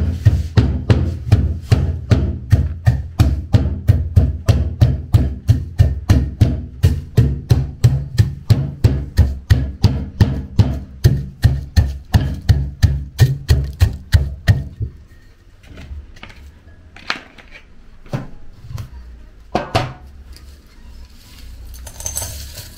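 Wooden pestle pounding sun-dried cocoa beans in a wooden mortar: steady dull thuds, about three a second, that stop about fifteen seconds in. A few lighter knocks follow, then the crushed cocoa rattles briefly as it is tipped out of the mortar into a glass bowl near the end.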